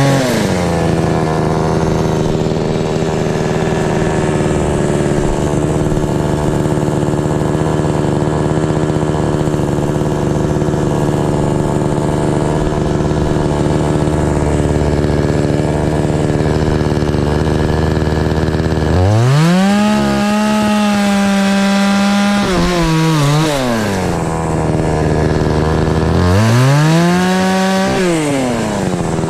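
Gas chainsaw cutting into pear-tree limbs under steady load, then revved up twice in the last third, its pitch climbing and falling back each time.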